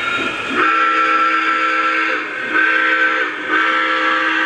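Steam whistle of an O scale three-rail model steam locomotive's sound system: three blasts of a chord-like multi-tone whistle, a long one, a short one, then another long one that runs on past the end.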